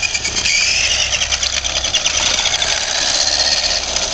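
Remote-control toy car's electric drive motor and gears whining as it drives, the whine rising in pitch as it speeds up about half a second in, then running high and steady.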